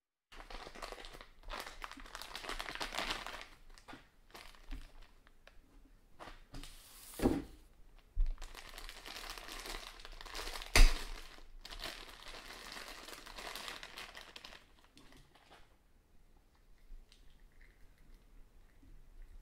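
Clear plastic parts bag crinkling as hands unwrap it, with two sharp, louder sounds about seven and eleven seconds in, the second the loudest; the handling grows quieter and sparser over the last few seconds.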